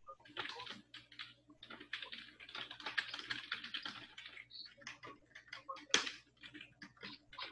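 Typing on a computer keyboard: irregular key clicks, thickest in a quick run between about two and four seconds in, with one louder click about six seconds in.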